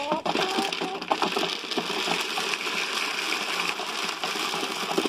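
Dry chicken feed (pellets mixed with corn) pouring steadily out of a plastic bucket into a plastic tube feeder, a continuous rain-like rush of grains.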